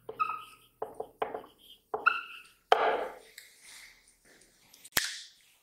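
Dry-erase marker squeaking and scratching on a whiteboard in a series of short strokes as a word is written, then a single sharp click about five seconds in.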